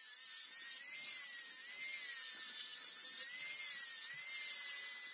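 Angle grinder fitted with a 220-grit sanding disc running at speed against a forged steel hammer head: a high whine that wavers slightly in pitch as the disc is pressed and moved, over a strong hiss of abrasive on metal.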